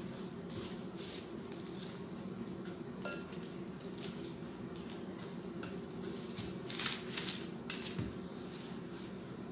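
Parchment paper rustling and crinkling as an insulated water bottle is rolled back and forth over dough on a stone countertop, with scattered light knocks and clinks. The rustles come in short scrapes, loudest about seven seconds in, over a steady low hum.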